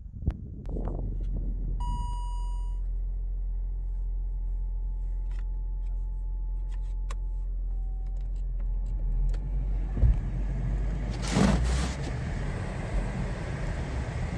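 Jeep Grand Cherokee engine idling, heard from inside the cabin, with a short dashboard chime about two seconds in. About ten seconds in there is a thump, then a louder rushing noise as the car gets under way in deep snow.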